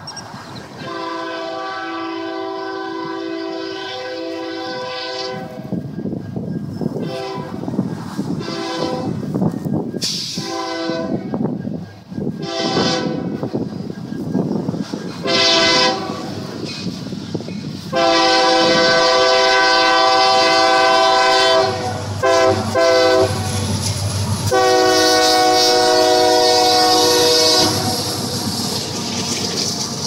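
Union Pacific diesel locomotive's air horn playing a chord of several tones in a long string of blasts: a long blast near the start, a run of short choppy toots, then long blasts with two quick short ones between them near the end. Under it runs the rumble and clickety-clack of the freight train rolling past.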